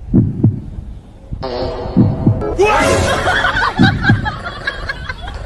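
Deep thumps in pairs, about every two seconds, amplified through a handheld karaoke microphone's speaker pressed against a lying dog. A denser, music-like layer joins about a third of the way in.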